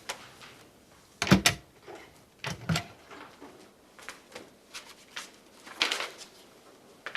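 Scattered knocks and clicks of movement and handling in a room. The loudest is a cluster of thuds about a second in, with another pair about a second later.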